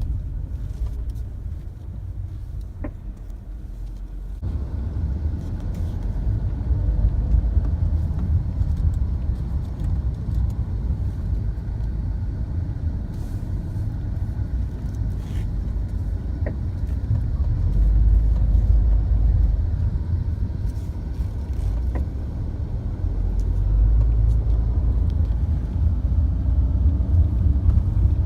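MINI R56 running, a steady low rumble that dips briefly and swells again, with a few faint clicks.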